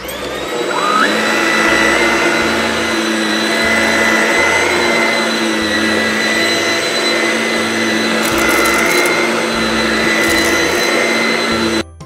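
Shark Rocket upright vacuum cleaner switched on, its motor whine rising to full speed within the first second. It then runs steadily while pushed over carpet and stops abruptly just before the end.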